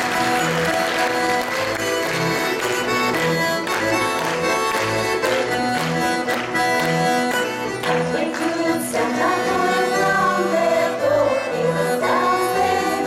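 Button accordions playing a folk dance tune in chords over a recurring bass note, with voices joining in the last few seconds.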